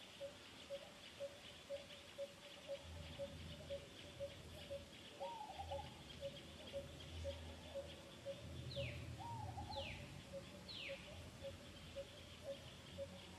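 Outdoor bird calls: a regular series of short low notes about two a second, a few short arched calls, and three quick falling whistles about a second apart in the second half, over a steady high hiss.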